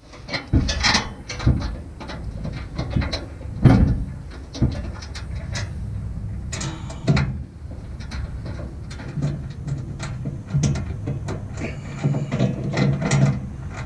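A steel receiver hitch and its bolts being handled against a pickup's frame: scattered sharp metal clicks, knocks and scrapes as the hitch is held up and bolts are started by hand, the loudest knock a few seconds in.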